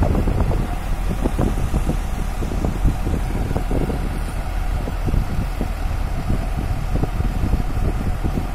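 Diesel engine of a JCB tracked excavator running steadily with a low rumble.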